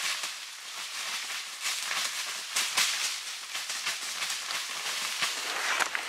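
Dry leaf litter on a forest floor rustling and crunching, with many quick crackles, as it is stirred and trodden on.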